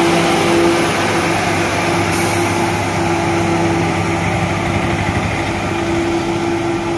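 Tata SE 1616 truck's diesel engine running steadily, with a constant hum.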